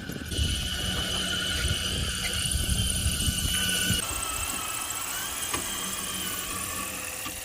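The electric drive of a 1/10-scale Traxxas TRX-4 RC crawler on Traxx tank tracks is whining as it drives through snow. The whine's pitch steps and glides as the throttle changes, over a low rumble.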